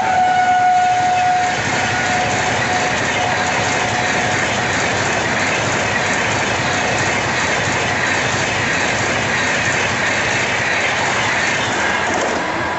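Vande Bharat Express trainset passing at speed, about 130 km/h, as a loud continuous rush of wheels on rail with clickety-clack. Its horn is already sounding at a lower pitch after passing, and fades out about four seconds in.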